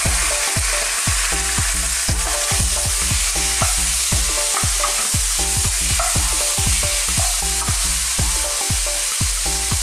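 Raw chicken cubes sizzling in hot oil in a frying pan, with a steady hiss, as a wooden spatula stirs them.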